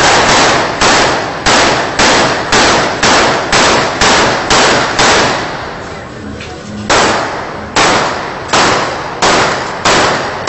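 Rapid gunshots from a repeater shotgun, about two a second, each trailing off in an echo. The firing breaks off for about two seconds midway, then resumes at the same pace.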